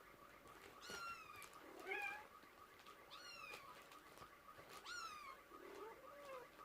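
Bengal kittens mewing faintly: a few short, high calls that slide downward in pitch, spaced a second or two apart.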